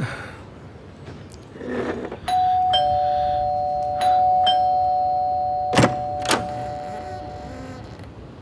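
Two-tone doorbell chime rung twice, each time a high note followed by a lower one, the tones ringing on and slowly fading. While the chime is still sounding, two sharp clicks come about half a second apart.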